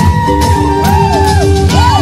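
Loud music with a heavy bass beat under a high melody that swoops up and down in short arcs.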